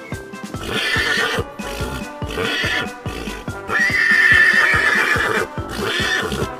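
Animal calls over background music with a steady beat: four loud calls, the longest near the middle lasting almost two seconds.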